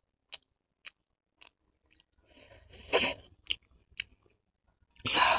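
A person chewing a mouthful of chowmein noodles close to the microphone, with scattered soft mouth clicks and two longer, louder stretches of eating noise, about three seconds in and near the end.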